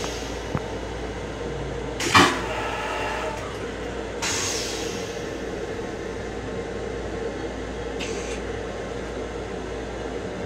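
Steady hum of a Metro-North M7 electric railcar heard from inside its small restroom. A single sharp metallic clank comes about two seconds in, and short hisses about four and eight seconds in.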